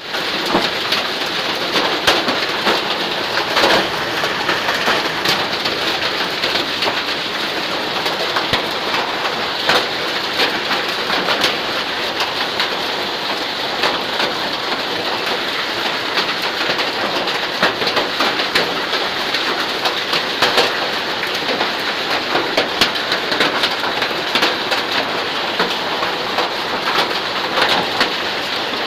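Hail and rain falling on bare ground: a steady, dense patter of small hailstones and raindrops hitting the earth, with many sharp little ticks through it.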